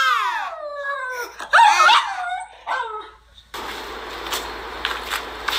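A French bulldog howling along with a crying toddler, in wavering wails that slide down in pitch and break into shorter yelps and whines. About three and a half seconds in, this cuts off abruptly to a steady rushing noise.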